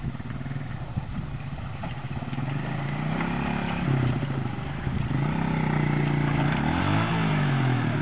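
Motorcycle engine running at low revs as the bike rides through a shallow river ford, its note rising and falling with the throttle and growing louder as it comes closer, with water splashing at the wheels. Near the end the revs rise as it climbs out onto the bank.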